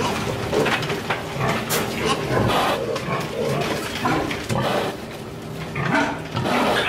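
A group of weaned piglets grunting as they jostle around a feeder.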